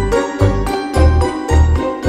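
Background music with a steady beat, about two deep bass thumps a second under sustained pitched notes.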